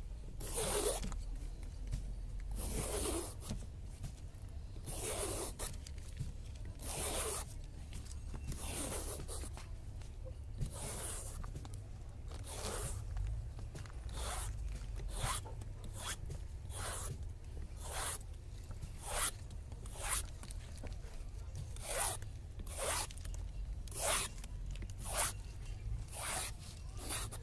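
Peeler blade scraping the skin off a bottle gourd in long rasping strokes, one every couple of seconds at first, then about one a second from halfway on.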